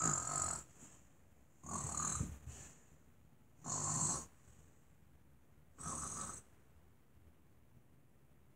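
A girl fake-snoring as she plays at being asleep: four snores, each about half a second long, roughly two seconds apart.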